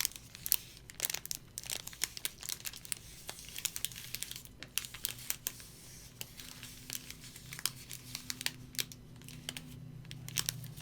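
Close-up crinkling and rustling of the paper wrapped around a cake as it is handled and unwrapped: a dense run of irregular sharp crackles.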